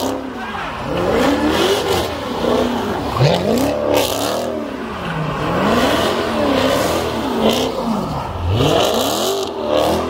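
Car engine revving hard over and over, its pitch climbing and falling back about once every second or so.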